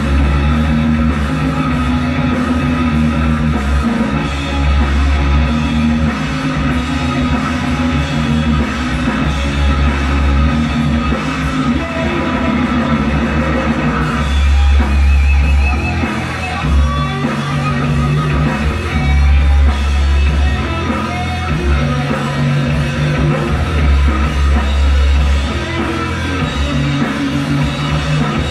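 A live rock band playing a song on electric guitars, bass and a drum kit, heard as played back through a television's speakers.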